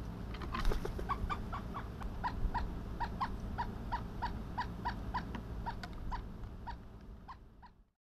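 Pileated woodpecker giving a long series of short, evenly spaced 'cuk' call notes, about three a second, fading out near the end. A brief scuffling noise comes just before the series begins.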